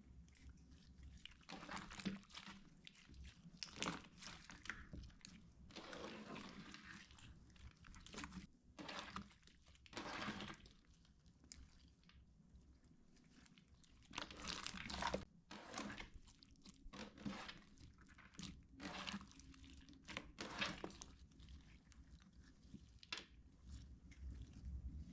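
Hands squeezing and pressing clear water slime, in irregular bursts of sound a second or a few seconds apart with quieter stretches between.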